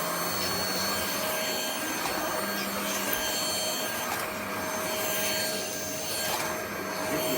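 Bieiao cordless stick vacuum running: a steady motor whine over rushing air, dipping slightly in loudness a few times.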